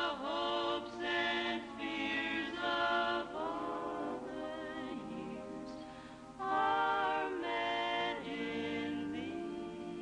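Choir singing a slow Christmas carol in long held phrases.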